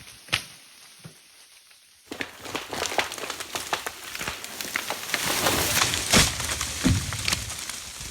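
Dry branches and brush crackling and snapping in a dense run of small cracks, busiest about halfway through, after a quieter opening of a few scattered snaps.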